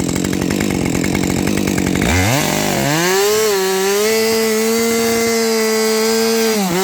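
Husqvarna 550 XP two-stroke chainsaw running low for about two seconds, then revving sharply to full throttle and holding a steady high pitch while the cut is made, dipping briefly near the end.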